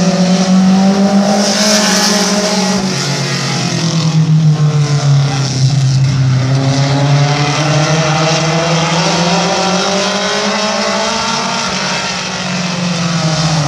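Several short-track stock cars racing on an oval, their engines running hard together. The engine pitch falls and climbs again as the pack lifts into the turns and accelerates down the straights, with dips about six seconds in and near the end.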